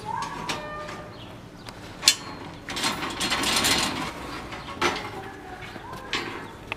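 Steel tie wire being twisted by hand around the crossing bars of a rebar column cage, with scraping and sharp metallic clicks of steel on steel. A loud click comes about two seconds in, and a longer rasping stretch follows around three to four seconds.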